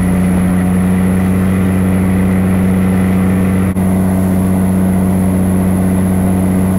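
Outrigger pump boat's inboard engine running at a steady cruising speed, a loud even drone, with water rushing past the hull. The sound drops out for an instant about four seconds in.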